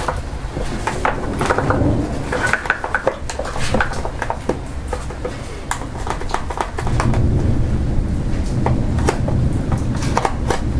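Utility knife cutting through a plastic rear bumper diffuser, a string of irregular sharp clicks and cracks as the blade works through the plastic. A louder low rumble joins in from about seven seconds in.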